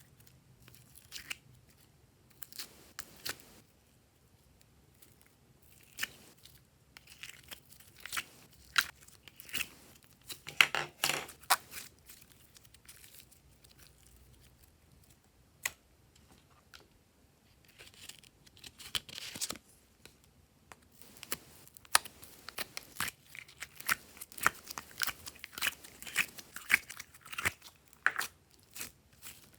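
Glossy slime being squeezed, stretched and folded by hand, giving irregular sticky pops and crackles, with busier clusters about ten seconds in and again in the second half.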